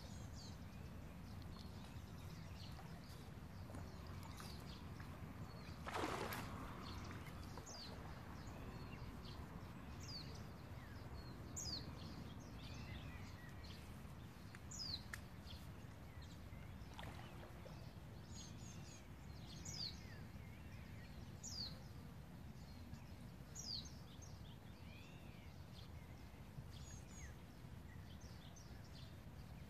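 Steady low outdoor background noise with a bird repeating a short, high, falling chirp every two seconds or so. A brief whoosh about six seconds in is the loudest sound.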